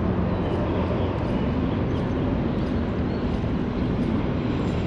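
Boat motor running steadily: a low, even hum with a rushing noise over it.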